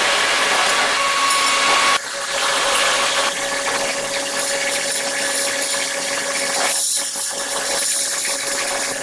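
Steady machinery noise of a hot-dip galvanizing plant, a constant hum under a hiss, changing abruptly about two seconds in.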